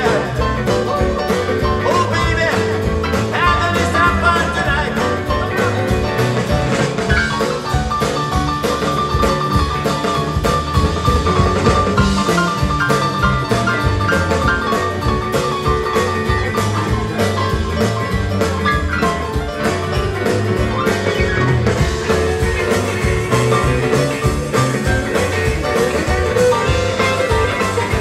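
Live rock and roll band playing with electric guitar over bass and a steady drum beat.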